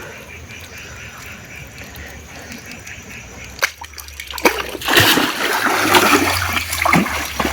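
Shallow river water splashing and sloshing, fairly quiet at first, then continuous and louder from about four and a half seconds in.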